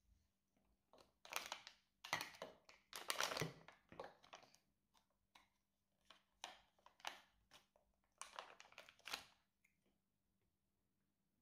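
Plastic baby-food squeeze pouch crinkling in a baby's hands, in several short crackly bouts, loudest about two to four seconds in.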